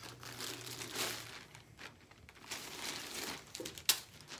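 Clear plastic wrapping crinkling and rustling as a guitar multi-effects pedal is slid out of it, with one sharp click a little before the end.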